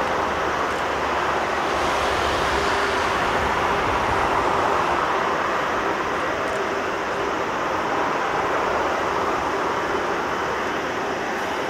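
Boeing 747-400 freighter's four turbofan engines at takeoff thrust, a steady jet noise as the aircraft climbs away, easing off slightly in the second half.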